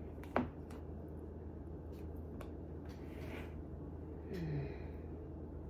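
Quiet room tone with a steady low hum and a few faint clicks of hands working dough out of a plastic cookie-dough tub, then a short breathy exhale with a falling pitch about four and a half seconds in.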